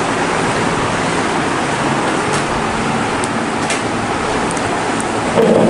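Steady, loud rushing hiss of background noise with no words, with a few faint clicks. A brief, louder, muffled sound comes near the end.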